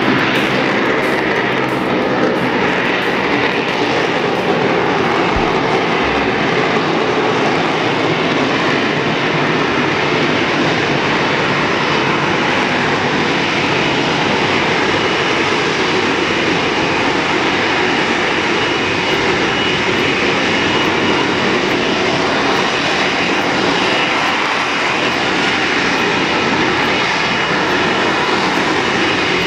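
A fighter jet's engine, loud and steady, as the jet flies slowly overhead.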